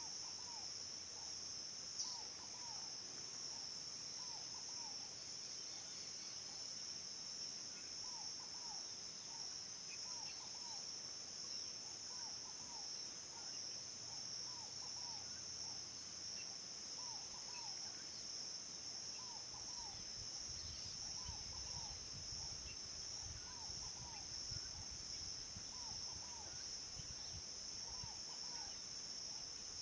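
A steady high-pitched insect chorus, with a short call repeated in groups of two or three every couple of seconds underneath. There is a single sharp click about two seconds in, and a low wind rumble comes in about two-thirds of the way through.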